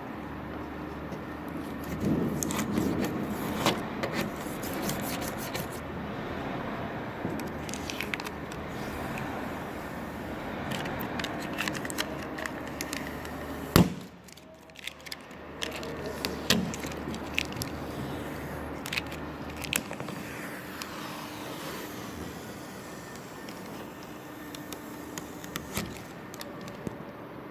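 A car sticker being scraped and peeled off the bodywork: irregular scraping and crackling with many scattered sharp clicks, and one loud click about halfway through.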